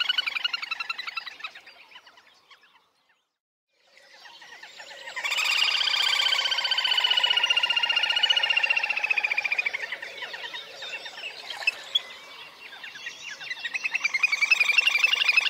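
Little grebe giving its rapid, high whinnying trill. The trill fades away about two seconds in and stops briefly. It starts again and grows loud for several seconds, sinking slightly in pitch, then weakens and swells up again near the end.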